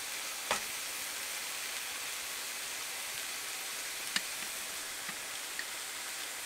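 Meat sizzling in a steady hiss, with a few faint pops.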